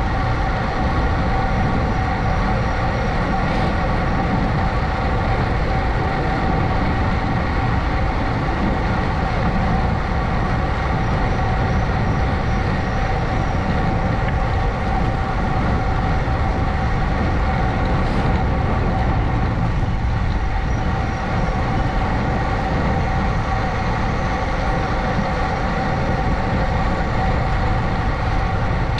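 A vehicle running steadily at constant speed: an even whine that holds its pitch, over a low rumble.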